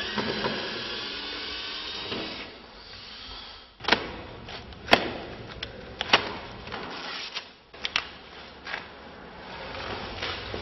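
Packing materials being handled and removed: plastic wrap and tape rustling and tearing for the first couple of seconds, then a run of sharp snaps and knocks, the loudest about halfway through.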